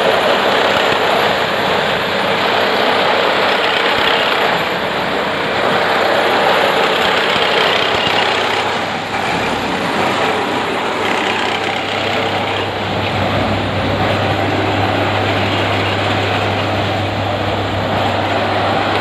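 Railway track tamping machine working: steady, loud heavy-machinery noise from its engine and workings, with a low hum that strengthens about twelve seconds in.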